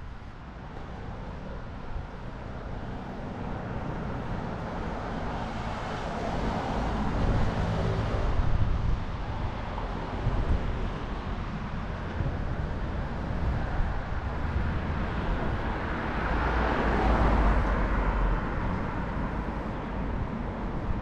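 Street traffic: cars passing on the road alongside, over a steady low rumble. Two louder passes swell and fade, one about seven seconds in and another about seventeen seconds in.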